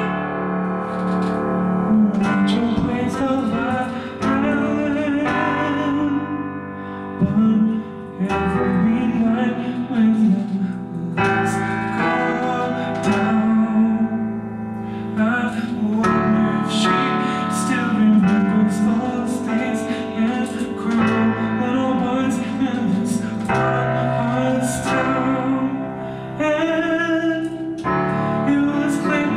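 Digital piano playing the song's chord progression in G major, with a sung melody over it.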